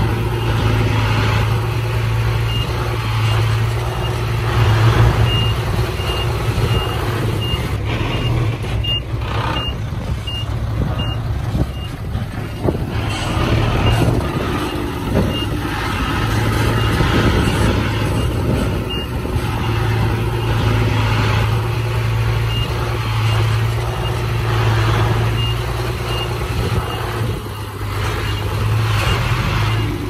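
Heavy diesel earthmoving machinery running steadily, with a reversing alarm beeping at an even rate of roughly two beeps a second, in stretches that stop and start several times.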